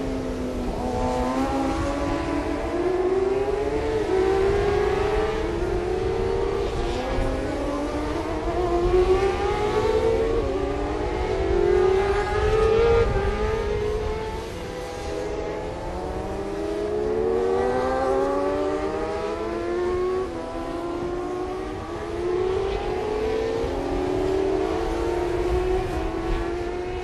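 Several 600cc supersport racing motorcycles accelerating hard, each engine rising in pitch through gear after gear, the rising sweeps of different bikes overlapping.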